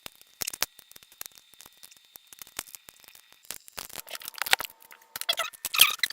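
Plastic pieces of a Ghost Hand 4x4x4 cube clicking as they are pushed into the cube's core. Twice in the second half they scrape and squeak as they are forced into place.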